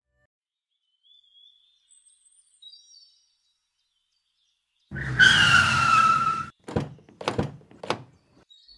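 A few faint bird chirps, then a Suzuki car skidding to a halt with a tyre squeal that falls slightly in pitch over about a second and a half. Three sharp thunks of its doors follow.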